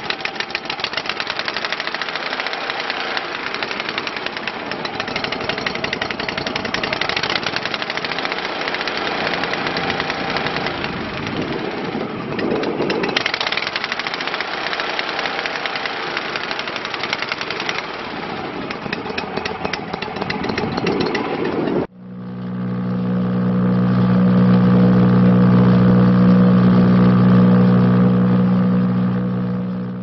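Kohler gas engine of a Vermeer BC600XL wood chipper running up close with a rapid, rattly firing beat, its note shifting a couple of times as the throttle lever is worked by hand. About 22 seconds in it cuts to a steady deep hum of the chipper running with no wood being fed.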